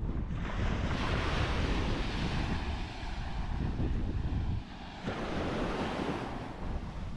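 Sea waves breaking and washing up the beach in two surges, the first long one easing about four and a half seconds in and a shorter one following, with wind buffeting the microphone.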